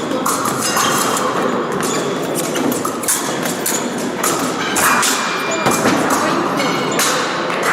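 Épée fencing in a busy hall: repeated thuds and clicks of footwork and blades, over background voices and music.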